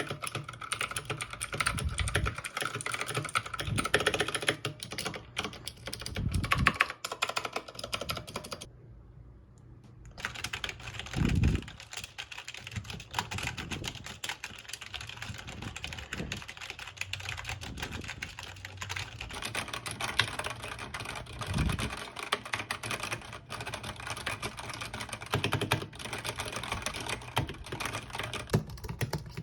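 Fast, continuous typing on a computer keyboard, a dense clatter of key clicks. It breaks off for about a second around a third of the way in, with a few dull thumps among the keystrokes.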